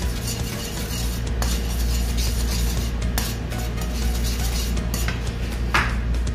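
Metal fork stirring a cream sauce in a non-stick frying pan, scraping and clinking irregularly against the pan, over a steady low hum.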